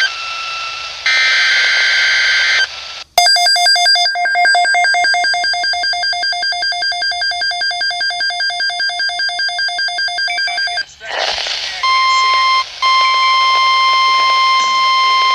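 Emergency Alert System alert tones over a broadcast. Short electronic tones come first, then a fast pulsing electronic beep, about eight a second, for nearly eight seconds. After a brief burst of noise comes a long steady attention tone with one brief break, the single-pitched alert tone that NOAA Weather Radio uses.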